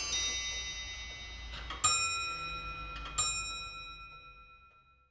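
Bennett hall clock striking the hour: three ringing strokes about a second and a half apart, the last dying away to silence.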